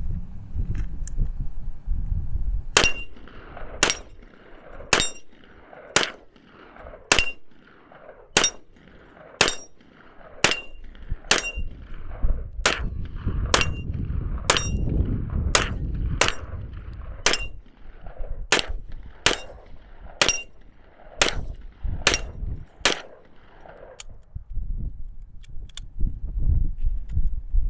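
9mm micro Uzi-style semi-auto rifle fired in a steady string of about twenty single shots, roughly one a second, with a brief metallic ring after each shot. Wind rumbles on the microphone throughout.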